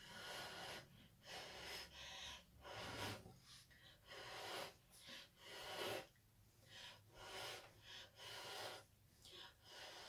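Short puffs of breath blowing on wet acrylic pour paint to push it across the canvas, about a dozen in a row, a little more than one a second.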